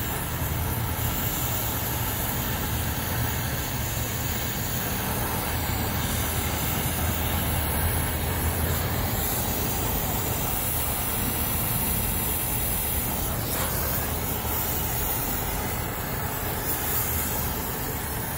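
Brazing torch flame hissing steadily on a copper line joint at a thermostatic expansion valve.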